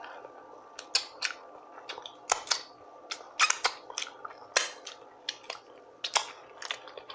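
Close-miked chewing of food, with a string of irregular sharp wet mouth clicks and smacks.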